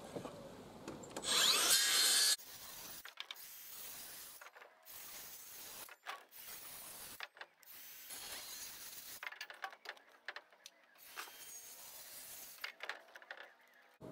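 Makita circular saw cutting through the end of a timber roof rafter for about a second, a little over a second in. After that there is only faint handling noise that stops and starts abruptly.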